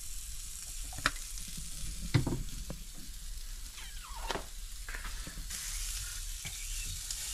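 Porridge of oats, milk and water cooking in a pan on the hob, with a steady hiss and sizzle, while a spoon knocks against the pan a few times and scrapes around it once near the middle.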